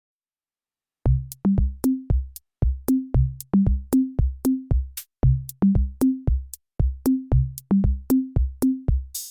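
Electronic background music: after about a second of silence, a drum-machine beat with kick drum and bass notes comes in, and fuller synthesizer chords join right at the end.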